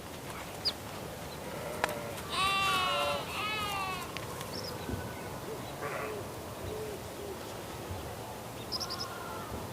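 A goat bleating twice in quick succession about two seconds in, each bleat wavering in pitch, with a fainter call near the end. Steady farmyard ambience with a few short bird chirps runs underneath.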